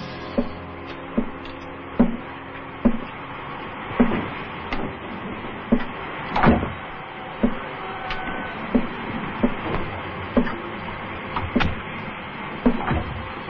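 Regular sharp clacks, a little more than one a second, over a steady low rumble.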